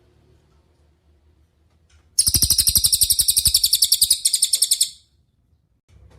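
Cililin bird singing: after about two seconds of quiet, a loud, high, fast trill of rapidly repeated notes lasting nearly three seconds, with a brief break near its end.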